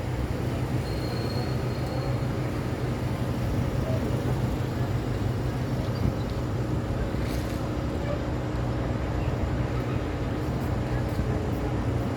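City road traffic: a steady low drone of vehicle engines over the hiss of passing traffic, with a short high whine about a second in.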